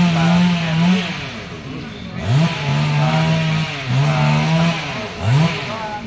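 Two-stroke chainsaw revving in repeated bursts as crews cut up the trunk of a large fallen rain tree. Each time it winds up quickly, holds at full speed for about a second, then drops off, with a short final blip near the end.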